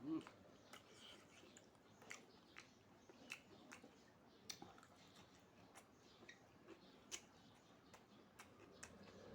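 Faint mouth sounds of someone chewing food: irregular soft clicks and smacks, a few a second, with a slightly louder one at the start and another about seven seconds in.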